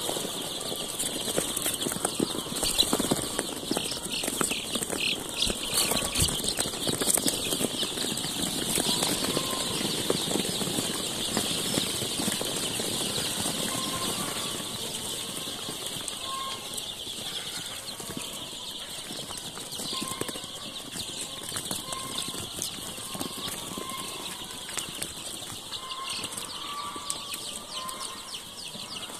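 Hundreds of young chicks peeping at once: a dense, continuous chorus of high-pitched cheeps, with scattered scuffs and taps in the wood-shaving litter.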